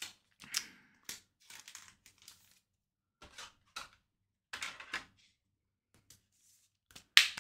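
Trading cards being handled: a run of irregular short rustles and scrapes, the loudest near the end.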